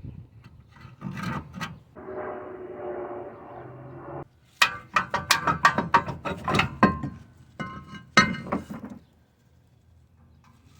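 Metal brake parts and hand tools clinking and clattering, many sharp ringing knocks in a quick run through the middle, after a steady rushing noise lasting about two seconds.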